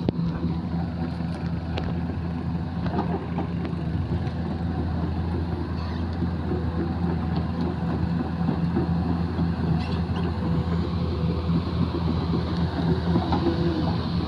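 Zoomlion crawler excavator's diesel engine running with a steady low drone, a little louder in the second half.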